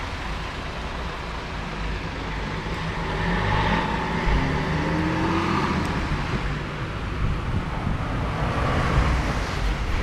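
Road traffic on a rain-soaked road, tyres hissing on the wet surface; the noise swells about three seconds in.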